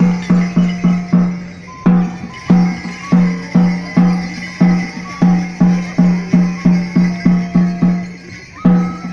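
Folk music: a pitched drum beaten at a steady pace of about three strokes a second, with a high melody line that slides between notes and a jingling, rattling percussion layer. The beat breaks off briefly twice, at phrase ends.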